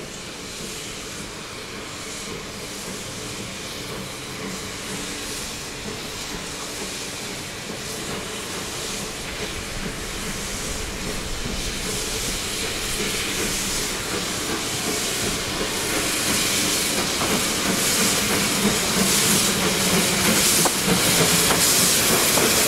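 Narrow-gauge steam tank locomotive pulling its coaches, steam hissing from around its cylinders, growing steadily louder as it approaches.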